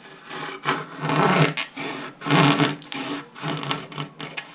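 Hacksaw blade cutting through a thin Kevlar composite skin, rasping back-and-forth strokes about two a second, using only the saw's own weight.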